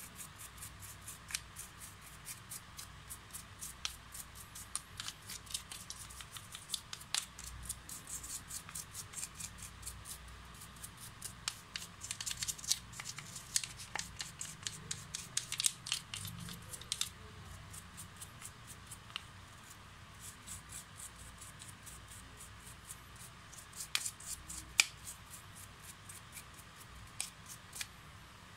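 A small stiff brush scrubbing the plastic half-shell of a cordless drill's housing, making rapid scratchy strokes with the odd click of the shell being handled. The scrubbing is busiest around the middle and briefly again near the end.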